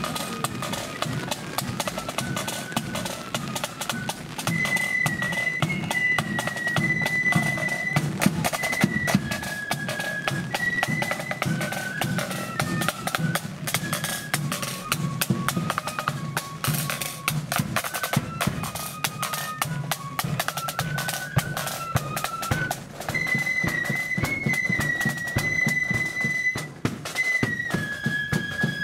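Marching flute band playing a tune: snare side drums rattling and a bass drum beating under a high flute melody.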